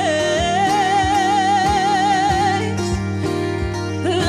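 A woman's voice holds one long sung note with vibrato for about two and a half seconds over a strummed 12-string guitar. The voice drops out, leaving the guitar alone, then comes back in near the end.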